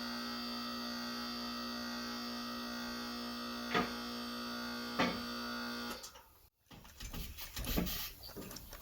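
Electric hydraulic pump motor of a VEVOR TL5522 car lift running with a steady hum as the lift raises, with two sharp clicks a little over a second apart. The motor cuts off about six seconds in, followed by a few knocks.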